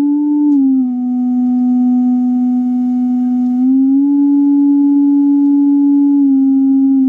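Sine-wave tone from an audio tone generator played aloud, a low steady tone that steps up in pitch at the start, drops back within the first second, steps up again about four seconds in and down again about six seconds in as its frequency is adjusted.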